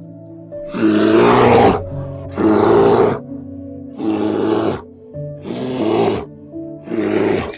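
A bear roaring five times, each roar under a second with short pauses between, over steady background music. A few quick high chirps come just before the first roar.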